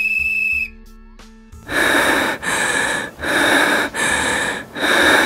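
A long whistle blast ends under a second in. Then come four loud rushing, noisy bursts about a second apart, over faint background music.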